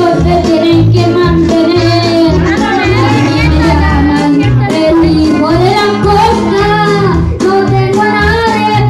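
A song: a singing voice, with a child's singing voice likely, over instrumental accompaniment with a steady, repeating bass line.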